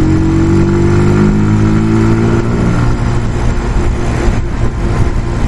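Brixton Felsberg 125's single-cylinder engine running under way, rising slowly in pitch as it accelerates for about three seconds, then dropping back and running steadily.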